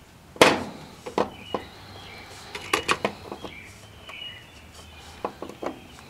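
Sharp clicks and knocks of pliers and plastic parts as a washing-machine control board is worked onto its plastic console housing, the loudest knock about half a second in and a quick cluster of clicks around the middle.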